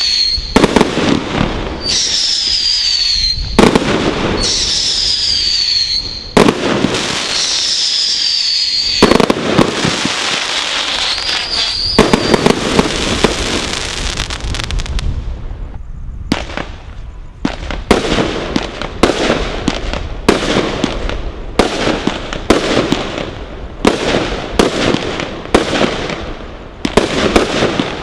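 Brothers Pyrotechnics Godfather firework display kit firing. For about the first twelve seconds, whistling shots (most of the whistles falling in pitch) alternate with loud bangs. From a little past halfway, a quick run of shots and bursts comes about two a second.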